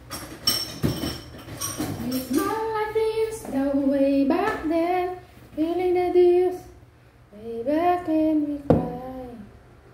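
A woman singing a few drawn-out notes that slide up and down in pitch. There is some handling rustle and clicks near the start and a sharp knock near the end.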